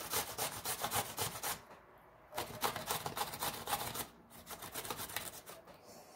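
Zucchini grated by hand on a stainless steel box grater: quick, rhythmic rasping strokes of the vegetable over the blades. The strokes pause briefly about two seconds in and again around four seconds, and grow softer near the end.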